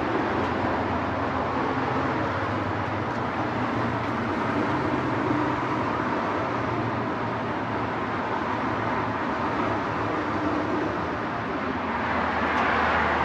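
Steady road-traffic noise outdoors: a continuous rushing hum with no distinct events, swelling slightly near the end.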